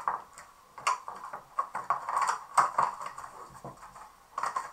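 Clear plastic blister packaging and its cardboard backing crinkling and crackling as they are handled and pulled apart, in a run of irregular crackles.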